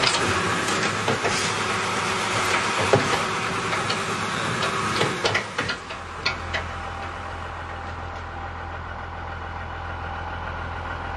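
Heavy vehicle engine running, with scattered knocks and clanks over the first half, then settling to a steady low idle from about six seconds in.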